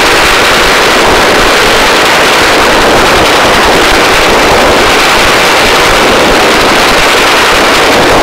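Loud, steady rushing noise of a hovering search-and-rescue helicopter heard at its open cabin door during a hoist operation: rotor and engine noise mixed with rotor-wash wind.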